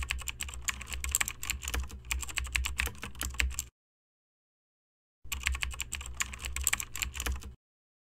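Keyboard typing sound effect: two runs of rapid key clicks over a low hum, the first about three and a half seconds long and the second about two seconds, with a short silent gap between.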